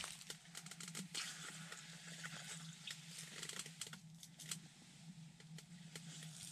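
Faint scattered clicks and crunches of ice slush being scooped and poked out of a fishing hole in the ice, over a steady low hum.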